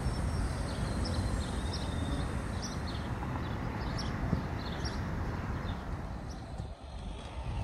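Outdoor rumble of wind on the microphone and road traffic, with short high bird chirps repeating about once a second.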